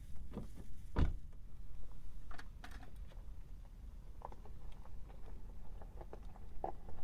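A series of irregular knocks and light clicks, the loudest about a second in, over a steady low rumble.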